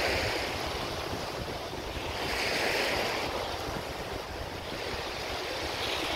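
Small ocean waves breaking and washing up the shore, the surf swelling and easing about every three seconds, with wind rumbling on the microphone.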